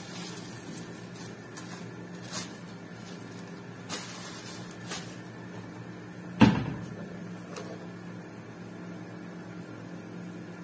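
A single loud knock about six and a half seconds in, with a few light clicks scattered earlier and a steady low hum throughout.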